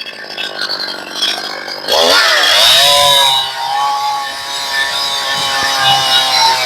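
Two-stroke chainsaw, freshly tuned, idling, then revved up about two seconds in and held at steady full throttle as it cuts through a log.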